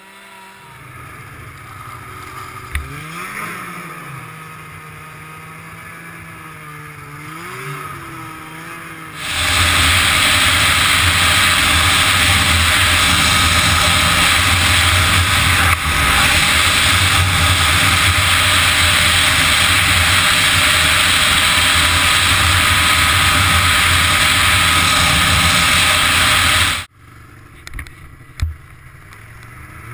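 Two-stroke snowmobile engines. For the first nine seconds a snowmobile revs up and down at a distance; then comes a loud, steady engine with rushing wind from a sled running at speed, which cuts off abruptly near the end before an engine revs up again.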